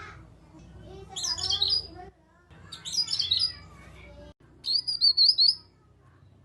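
Cucak kinoi singing three short bursts of quick, high chirps and whistles, the last a fast trill of about five notes. It is a lure call meant to set other kinoi singing.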